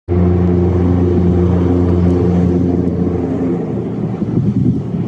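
Mitsubishi 4D31 four-cylinder diesel inboard engine of a wooden cargo boat running at speed, a loud, steady drone. It turns rougher and more broken in the second half.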